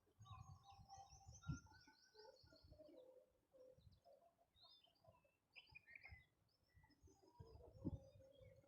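Faint birdsong: several birds chirping and trilling in short high notes, with lower calls underneath and a few soft low thumps, the clearest about one and a half seconds in and near the end.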